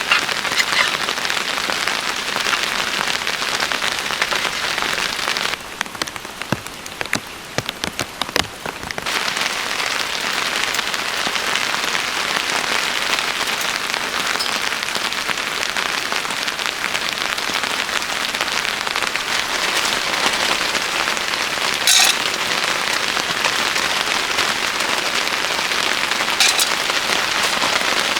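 Steady rain falling, a dense even hiss. About six seconds in it drops away for some three seconds to scattered separate drip ticks, then resumes. There is a sharp tap about 22 seconds in and another near the end.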